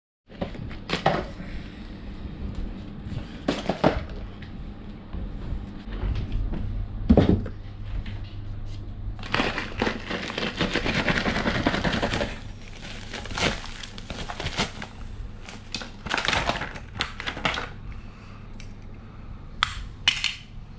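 Plastic packaging being crinkled, torn and handled, with scattered clicks and knocks of objects on a hard floor. A dense stretch of rustling comes about nine to twelve seconds in.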